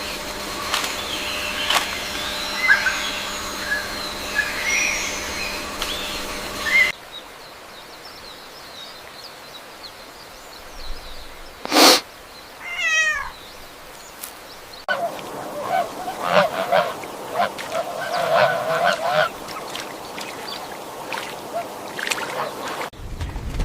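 Waterfowl calling, with honking calls, across three short clips that cut abruptly into one another, and one sharp loud sound about halfway through.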